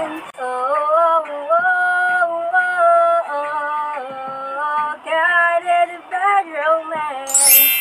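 Female voices singing a wordless melody with long held notes that step up and down. Near the end a bright, high ringing sound rises in over the singing.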